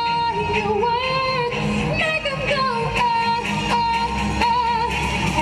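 A woman singing a pop song into a microphone, amplified through a PA, over a recorded backing track. She holds long notes that waver slightly in pitch.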